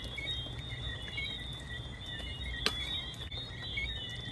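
Night chorus of insects: steady high-pitched trilling with short chirps repeating over it, above a low rumble. A single sharp click comes about two and a half seconds in.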